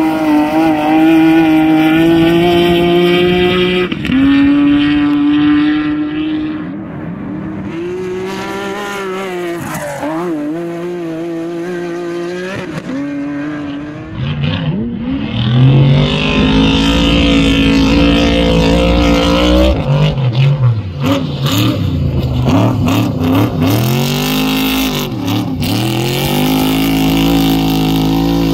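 Off-road race car engines racing past, holding high revs, then backing off and climbing again through gear changes. There are several deep rising-and-falling swoops in the revs in the second half.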